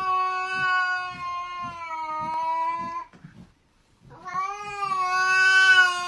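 Domestic cat yowling: one long drawn-out call that stops about three seconds in, then after a second's pause a second long call begins.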